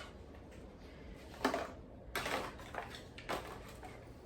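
Kitchen handling sounds: three short knocks and rustles as food containers are moved and handled, the longest about two seconds in.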